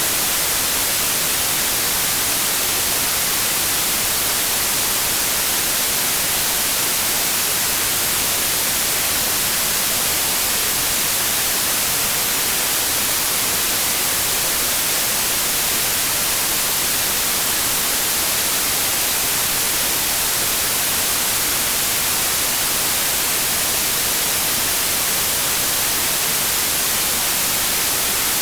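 Synthetic white noise: a steady, unchanging hiss, strongest in the high frequencies.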